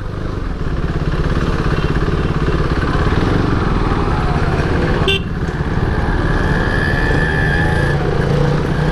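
Motorcycle engine running steadily while riding slowly through traffic, with a short horn toot about five seconds in and a steady high tone lasting a couple of seconds after it.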